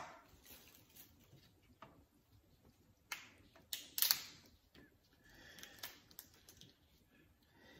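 Boiled blue crab being cracked and pulled apart by gloved hands: scattered small cracks and snaps of shell, the loudest two about three and four seconds in.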